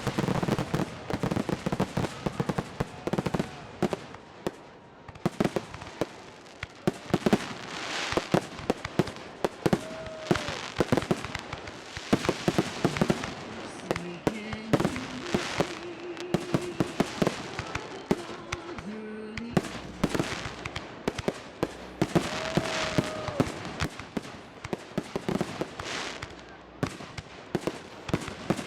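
Fireworks display going off in a rapid, continuous barrage of bangs and crackles, many reports overlapping throughout.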